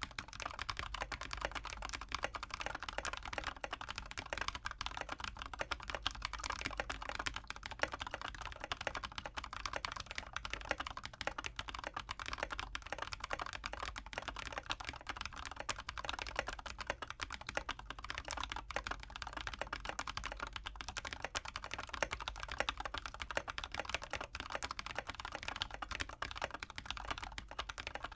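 Continuous fast typing on a mechanical keyboard fitted with lubed Panda tactile switches: a dense, steady run of keystrokes.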